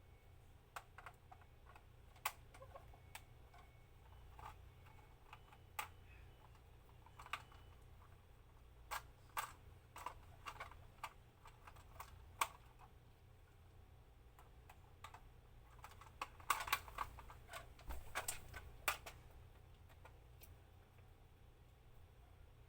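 Faint, irregular clicks and taps of small plastic parts being handled, with bunched runs of clicks about nine to thirteen seconds in and again about sixteen to nineteen seconds in.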